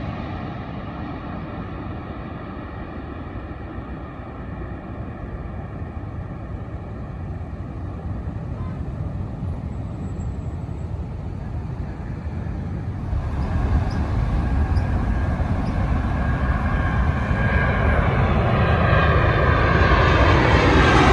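Jet airliners on landing approach. One engine whine with steady tones fades away over the first half, then about two-thirds in the next jet comes in, growing louder, its pitch falling as it passes near the end.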